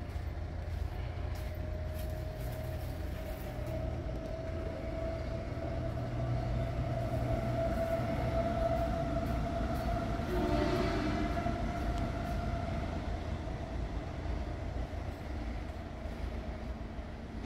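A passing vehicle's steady engine drone over a low rumble, swelling to its loudest a little past halfway and then fading away.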